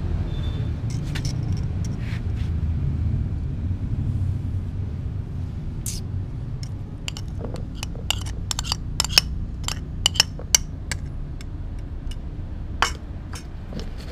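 A metal spoon clinking and scraping against a glass plate as cooked rice is tipped out, a run of sharp clinks from about six seconds in to near the end, over a steady low rumble.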